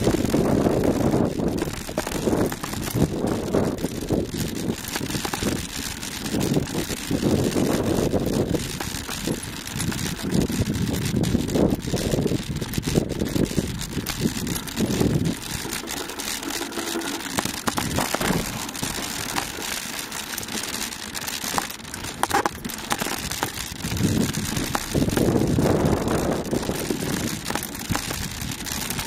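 Wind buffeting a moving action-camera microphone in irregular gusts, over the crunch and rattle of a mountain bike rolling across rocky dirt singletrack.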